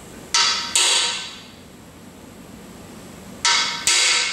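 Hammer blows driving a freeze plug into a Ford 351 Windsor engine block: two quick strikes, a pause of nearly three seconds, then two more. Each strike rings briefly with a metallic tone.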